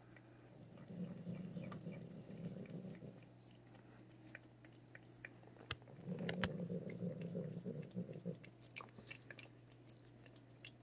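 Cat licking paste treat from a squeeze tube: small wet lapping and smacking clicks, with two stretches of low rumbling, about a second in and about six seconds in.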